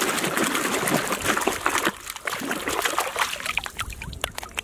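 A hand swishing small plastic toys through pond water: rapid splashing and sloshing that eases about two seconds in, then lighter, scattered splashes.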